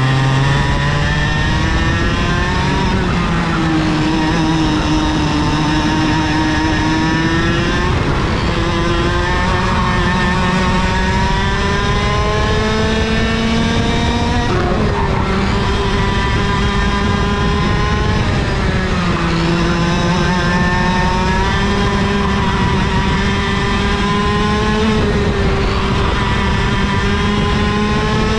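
IAME KA100 kart's 100cc two-stroke engine at racing speed, heard from onboard: its pitch climbs steadily as it accelerates and drops sharply as it slows, about five times, over a constant rushing noise.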